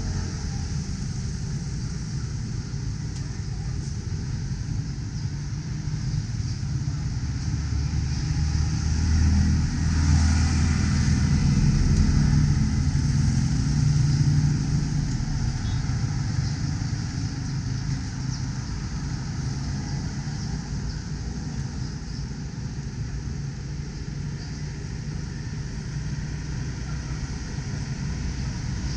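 Road traffic on a wide multi-lane highway: a steady low rumble of passing cars and motorcycles, growing louder between about eight and fifteen seconds in as a vehicle passes close by.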